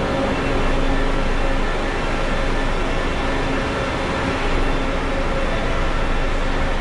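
Steady drone of an idling bus engine with a constant hum, over the busy noise of a bus terminal.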